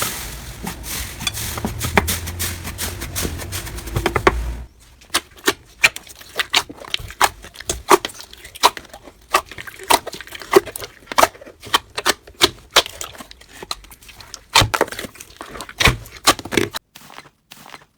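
Slime being handled: a dense squishing sound at first, then from about five seconds in a run of sharp, irregular clicking pops as the slime is pressed and stretched.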